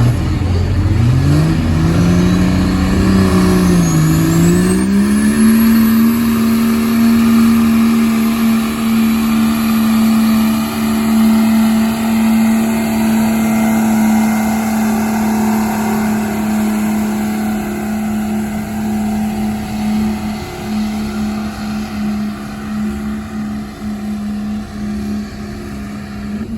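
Diesel pickup truck engine pulling a sled under full load: the revs climb, dip briefly about four seconds in and climb again, with a rising turbo whistle, then hold steady for a long stretch while the sound slowly fades as the truck moves away.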